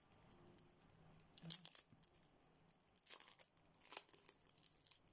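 Faint crinkling of thin plastic packaging as small packets are handled, with a few sharper rustles about one and a half, three and four seconds in.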